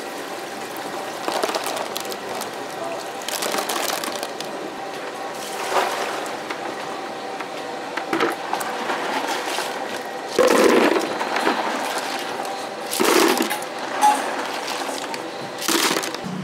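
Cockles being washed by hand in a plastic basin: water sloshing and splashing with shells rattling, and about six louder surges of splashing as water is tipped out and shells are scooped.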